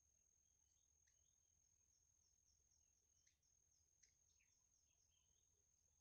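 Near silence: a faint steady high whine with scattered faint chirps and ticks, including a quick run of small falling chirps about a third of the way in.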